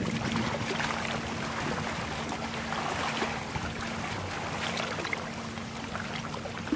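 River ambience: water lapping and splashing with many small ticks, under a faint steady drone from a boat engine.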